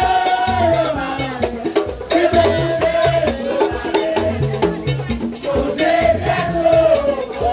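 Lively dance music: a wavering melody over a repeating bass line and steady percussion.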